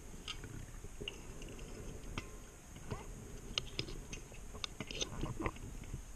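Irregular small clicks and crackles from dive gear and the camera housing, heard underwater over a steady low rumble of water.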